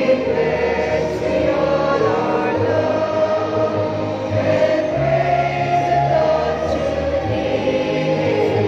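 Large group of people singing a school hymn together in slow, held notes over steady low accompaniment notes.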